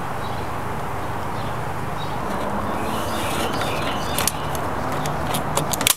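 Steady outdoor background noise with faint bird chirps. In the last couple of seconds come a few sharp clicks and rustles as wire hardware cloth is handled and pressed against the wooden frame.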